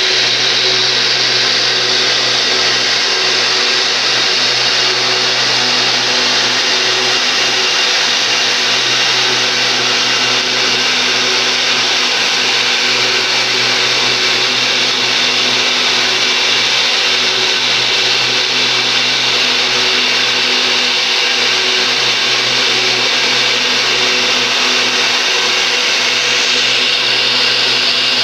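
Belt grinder with a red abrasive belt running steadily: an electric motor hum under the whir of the belt over its pulleys, holding one speed without any change.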